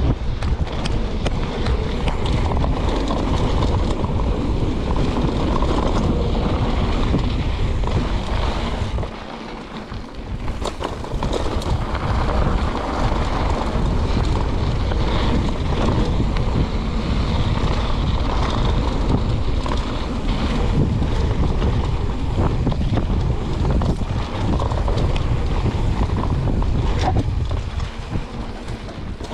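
Wind buffeting the microphone and a mountain bike's tyres rumbling over a dirt trail at speed. The noise drops briefly about nine seconds in.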